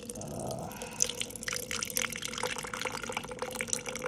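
Sweet tea being poured out of a can, splashing and dripping in irregular spatters.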